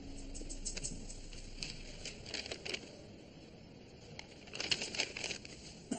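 Faint rustling with scattered light clicks and taps in a few small clusters, the small movements of people seated in a quiet courtroom.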